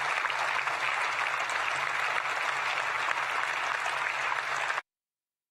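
Audience applauding, steady dense clapping. It cuts off abruptly to complete silence about a second before the end.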